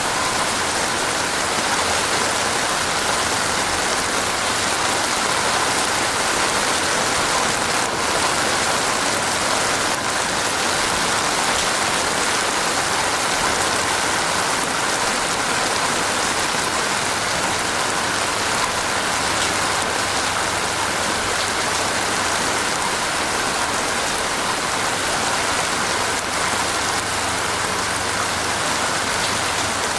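Heavy rain falling steadily, an even dense hiss of rain on surfaces.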